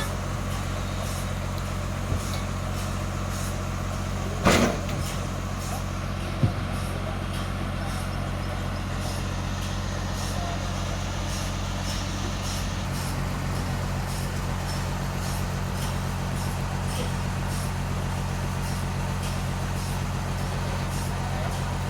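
Sawmill engine running steadily with a low hum, its pitch shifting slightly about two-thirds of the way through. A loud knock comes about four and a half seconds in, and a smaller sharp knock about two seconds later.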